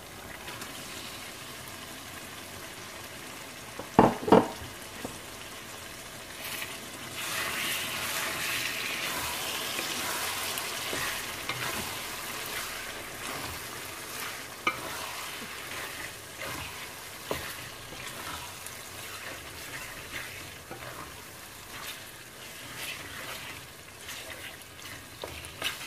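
Raw chicken pieces sizzling as they fry in hot spice masala in a metal pot, stirred with a wooden spatula. Two sharp knocks come about four seconds in, and the sizzle grows louder from about seven seconds on.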